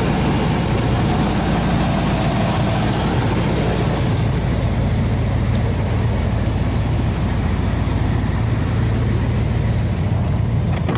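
1986 Chevrolet K-10 pickup engine idling steadily.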